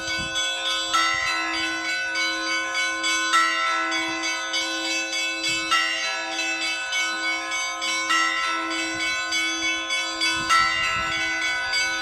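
Russian church bells ringing in a rhythmic peal: several bells struck many times a second over a held ringing tone, with a heavier strike returning about every two and a half seconds.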